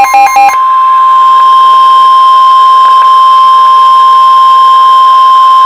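Weather radio alert: the tail of a fast alternating two-pitch beeping, then a loud steady single tone, the NOAA Weather Radio warning alarm tone that announces a severe thunderstorm warning.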